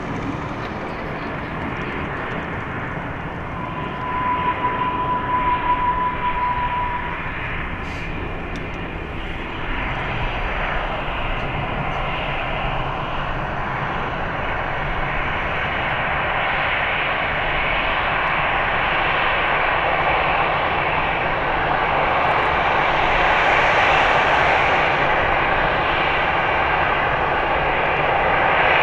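Airbus A320 airliner's jet engines on approach to landing, a steady roar growing gradually louder as it nears. A short steady high tone sounds for about three seconds, about four seconds in.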